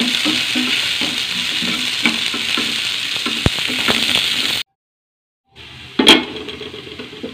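Chopped onion and green chillies sizzling as they fry in oil in a nonstick pan, stirred and scraped with a spatula. The sound cuts out for about a second two-thirds of the way through, then the sizzle comes back quieter with one sharp knock.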